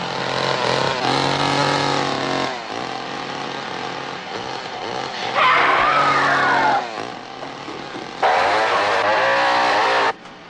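Two-stroke chainsaw running and being revved in repeated surges, its pitch rising and falling, then sawing through a wooden door near the end before it cuts off suddenly.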